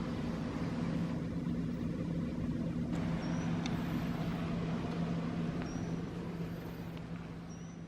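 A motor vehicle's engine running steadily, a constant low hum.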